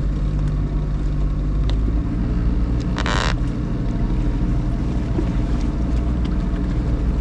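Boat engine running steadily under load, working to push the grounded hull off a sandbar; its note shifts about two seconds in. A short hiss about three seconds in.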